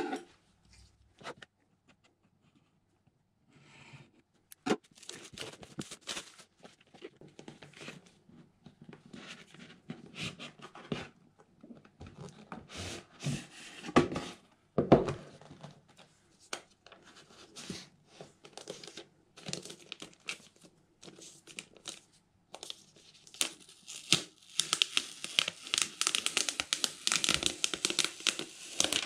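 Unboxing noises: the box being handled and opened, with scattered rustles and light knocks. About three-quarters of the way in, loud continuous crinkling starts as the thin plastic sleeve is pulled off the Mac mini.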